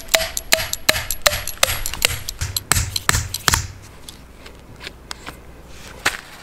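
A wooden mallet drives a capped metal tent peg into the ground: about ten sharp strikes, roughly three a second, with a faint ring on the early ones. The strikes stop after about three and a half seconds, and a single knock follows near the end.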